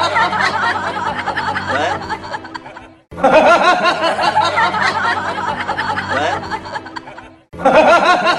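A looped clip of giggling laughter over music. It cuts off sharply and restarts identically about every four and a half seconds, once about three seconds in and again near the end.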